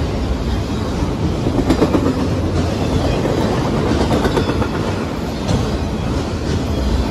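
Freight train cars passing at speed: a steady rumble with the wheels clacking over the rails.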